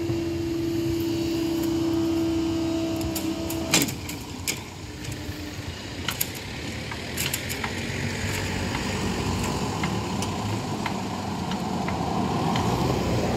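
A level crossing's faulty alarm gives a steady single tone as the barrier rises, then cuts off with a sharp clunk about four seconds in. A few scattered clicks follow, then a pickup truck's engine and tyres grow louder as it drives over the crossing near the end.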